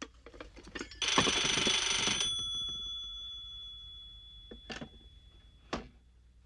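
A telephone's bell rings once, a loud metallic ring of about a second starting about a second in, which then dies away slowly over several seconds. Small clicks and knocks of handling come before it and near the end.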